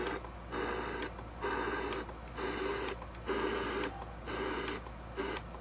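Portable radio's speaker giving out a regular pulsing sound, a pulse a little faster than once a second with short gaps between.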